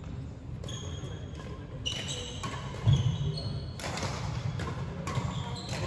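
Badminton play on a wooden sports-hall floor: sneakers squeaking briefly and repeatedly, with sharp racket-on-shuttlecock hits, over a steady low hum. A heavier thump about three seconds in is the loudest sound.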